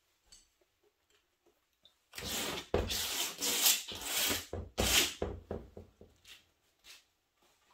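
A hand-held texture tool scraped and scratched back and forth over painted heavy watercolor paper on a wooden board. A run of rough rasping strokes starts about two seconds in and lasts about three seconds, then a few fainter strokes follow.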